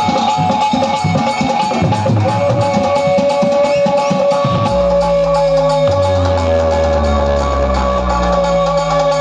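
Loud dance music blasting from a DJ speaker stack. A fast drum beat runs through the first half, then long deep bass notes come in from about five seconds, under a steady high held note.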